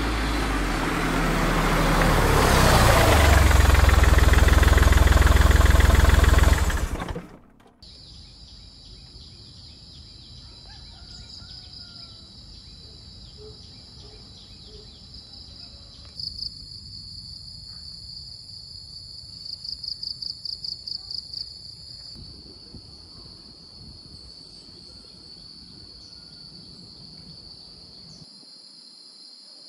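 A loud sound swells for about seven seconds and cuts off sharply. Then insects drone steadily in a pine forest, high-pitched, with a stretch of rapid pulsed chirping about twenty seconds in.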